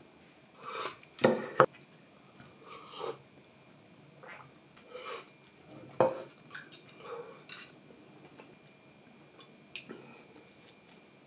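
Chopsticks and a wooden soup bowl knocking on a wooden table during a meal: two sharp clacks about a second in and another at about six seconds, with quieter eating sounds between.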